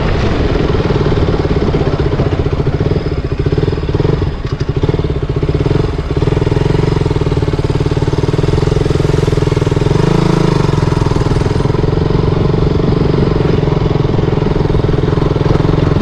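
KTM Duke 200's single-cylinder engine running at a steady speed while the motorcycle is ridden.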